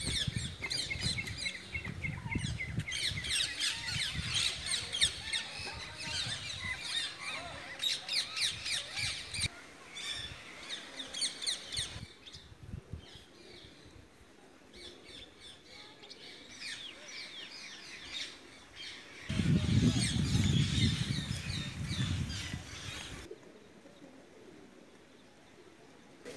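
Many small birds chirping in quick, high calls, dense for about the first twelve seconds and sparser after. For a few seconds past the middle a low rumble, the loudest sound, comes in and stops suddenly.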